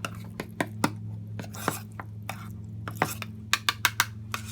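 A metal utensil clinking and scraping against a dish while canned kitten food is prepared, with a quick run of clinks near the end. A steady low hum sits underneath.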